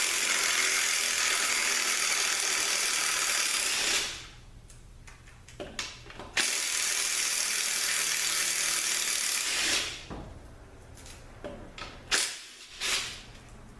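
A power tool runs in two long bursts of three to four seconds each, winding down at the end of each, as it unscrews the bell housing bolts of a Nissan RL3F01A three-speed automatic transaxle. A few short metal clicks follow near the end.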